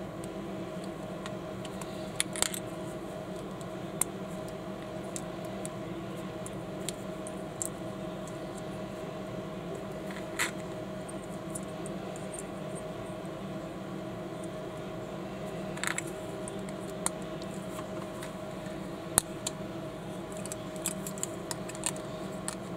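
Small plastic building bricks, Panlos Lego-compatible pieces, clicking and snapping together as they are pressed on and handled by fingers: scattered sharp clicks every second or few, over a steady low hum.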